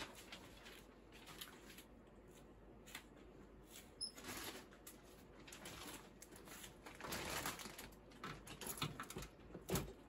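Faint scuffs and rustles around a plastic-and-wire bird cage, ending in a short flutter of a cockatiel's wings and a knock as it drops down into the cage.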